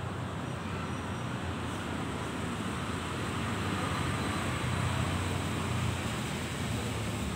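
Steady low rumble of outdoor background noise with a light hiss on top, like distant road traffic, swelling slightly about four to six seconds in.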